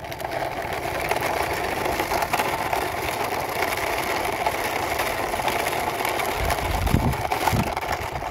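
Plastic wheels of a toy truck rolling along a rough concrete wall top as it is pushed by hand, a steady rattling scrape, with a few low bumps about seven seconds in.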